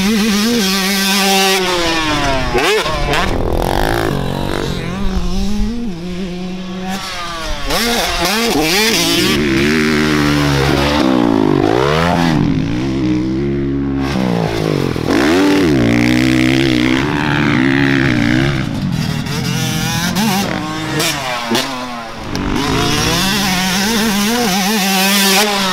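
Dirt bike engine revving hard and easing off over and over, its pitch climbing and dropping as the bike accelerates, shifts and slows around a motocross track.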